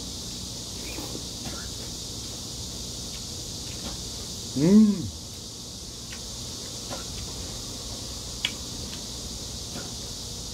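Eating sounds: faint clicks of chopsticks against a bowl, with one short hummed 'mmm' from a man, rising then falling in pitch, about four and a half seconds in. A steady high hiss runs underneath.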